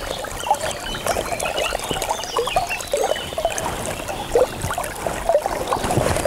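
Water gurgling and lapping against a small fishing raft's hull, with irregular little splashes and plops.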